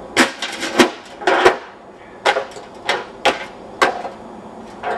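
Hammer blows, about ten sharp strikes at uneven spacing, each with a short ring: a quick repair being hammered into shape.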